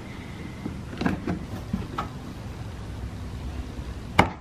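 Scored plastic exhaust valance being bent by hand and peeled away along the cut line, giving a few faint crackles and then one sharp snap near the end as the piece breaks free.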